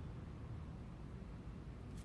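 Faint, uneven low rumble with a light hiss: background noise with no distinct event.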